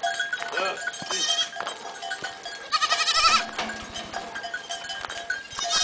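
A herd of goats bleating several times, the loudest a high, quavering bleat about three seconds in. Under the calls runs a steady ringing of goat bells.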